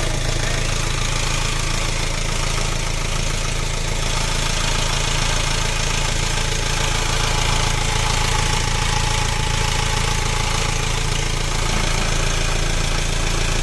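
Isuzu 4HG1 four-cylinder diesel engine idling steadily, freshly overhauled with new liners, pistons, rings and main bearings and its valves adjusted.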